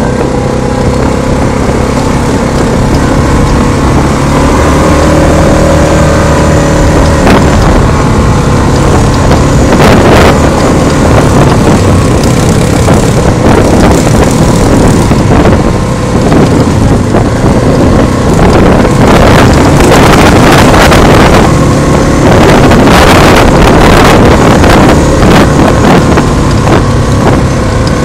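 ATV engine running as the quad rides along a rough dirt trail, its revs rising and falling, with wind buffeting the microphone. Knocks and rattles from the bumpy ground grow frequent in the second half.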